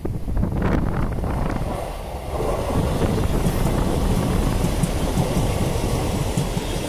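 ScotRail Class 158 diesel multiple unit passing close by: its underfloor diesel engines and wheels on the rails make a steady rumble that grows louder about two seconds in as the train draws alongside.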